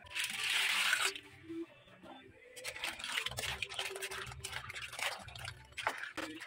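A splash and sizzle in the first second as seafood goes into the hot wok of sauce. Then a metal spatula scrapes and knocks against the wok while mussels, clams and shrimp are stirred, their shells clacking.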